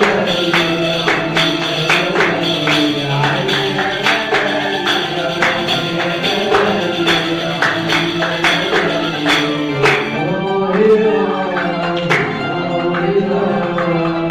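Live Arabic ensemble music: a qanun's plucked melody over hand percussion keeping a quick, steady beat. The percussion drops out for about two seconds near the end, then comes back.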